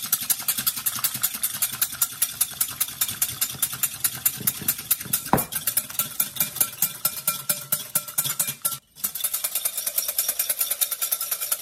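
Wire whisk beating egg whites in a glass bowl, fast, even strokes clicking and scraping against the glass as the whites turn frothy. The whisking stops for a moment about nine seconds in, then carries on.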